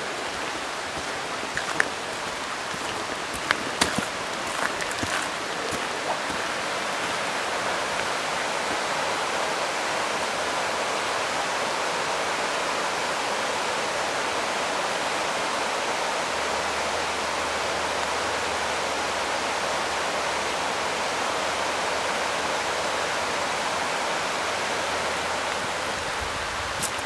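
Steady rushing of a forest stream, growing a little louder after the first several seconds. A few sharp clicks stand out in the first five seconds.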